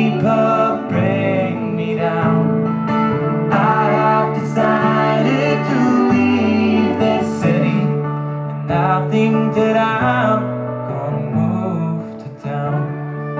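Song music led by guitar, with a melodic line gliding over sustained chords, played without recognisable lyrics.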